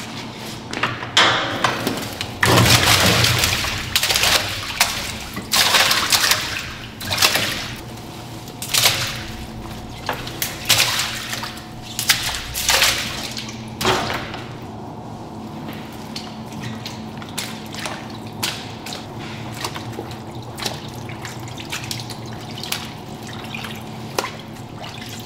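Water splashing and pouring in a run of bursts over the first fourteen seconds, then scattered drips and light clicks, over a faint steady hum.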